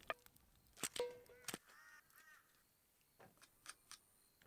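Mostly quiet, with a few faint clinks and taps of a metal utensil against a pot.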